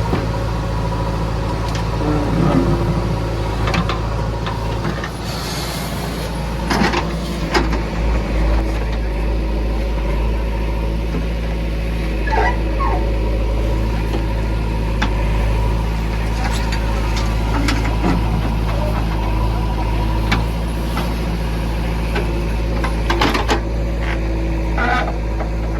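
Heavy diesel engine of a JCB 3DX backhoe loader running steadily with a low hum, with scattered clanks and knocks from the loading work.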